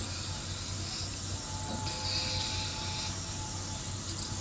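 Steady low hum and hiss of background room noise.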